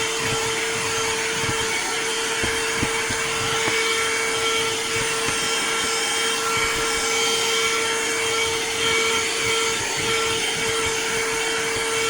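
Cordless handheld car vacuum running steadily with a constant motor whine over the rush of suction as it works the car's floor carpet. The tone dips briefly about two seconds in and again near the end.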